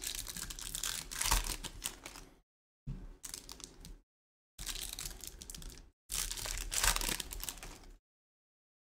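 Topps Chrome trading cards being slid and flipped against each other in the hands, a rustling with many small clicks in four bursts, each cut off to dead silence.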